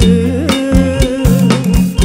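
Live Khmer orkes band playing an up-tempo kantrum dance rhythm. Drum kit and congas beat steadily under bass guitar, with a sustained melody line from keyboard organ and electric guitar.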